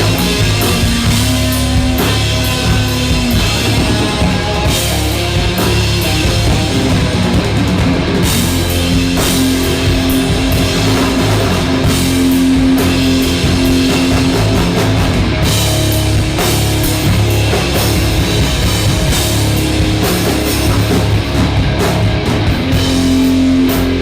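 Rock music with drum kit and distorted guitars, loud and steady throughout.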